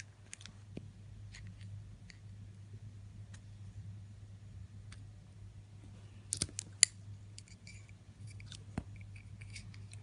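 Scissors cutting a plastic drinking straw: scattered light clicks, then a quick run of sharp snips about six and a half seconds in.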